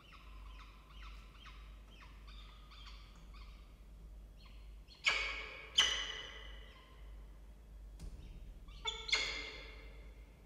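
Peregrine falcons at a feeding in the nest box: a run of short, high cheeps about three a second, typical of a downy nestling begging. Louder calls come twice about five and six seconds in, and again near nine seconds.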